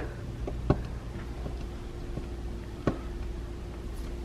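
Two sharp clicks about two seconds apart and a few fainter ticks as fingers pick at painter's tape on a window frame, over a steady low hum.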